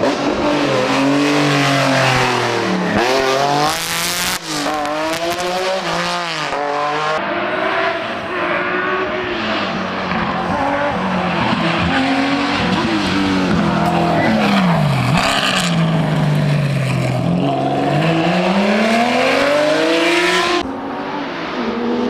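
Historic rally cars driven hard through a stage, one after another, their engines revving up and falling away again and again through gear changes and corners.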